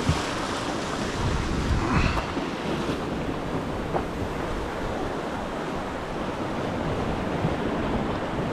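Sea surf washing and breaking against the rocks below, a steady rushing noise, with wind buffeting the microphone.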